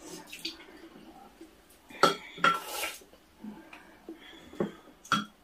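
Eating utensils clinking against bowls and dishes: a few sharp clinks, the loudest two about two seconds in followed by a short scrape, and two more near the end.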